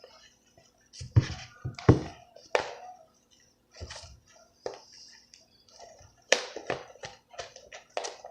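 Fluffy shaving-cream slime being kneaded and squeezed by hand, giving irregular wet clicks and pops, which come faster in a quick run near the end.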